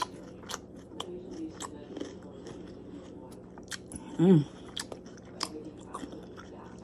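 Close-up chewing of a crunchy cucumber and tomato salad: wet crunches and mouth clicks. There is a short 'mm' hum about four seconds in.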